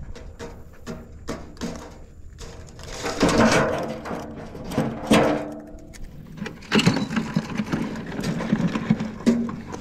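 Clothing rustling and brushing against a body-worn camera's microphone as the wearer bends and moves, with scattered clicks and knocks. The brushing is loudest in bursts a few seconds in and again about two-thirds of the way through.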